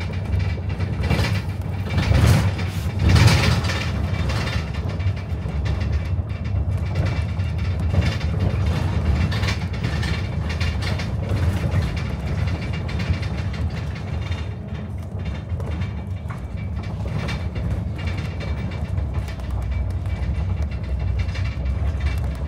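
City bus in motion, heard from inside: a steady low rumble of engine and road, with rattles and knocks loudest about two to three and a half seconds in.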